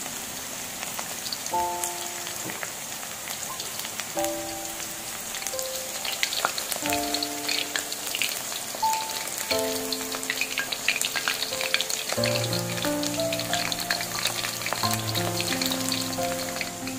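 Battered chicken pieces deep-frying in hot oil in a wok: a dense crackling sizzle that grows busier partway through. Background music with held notes plays alongside.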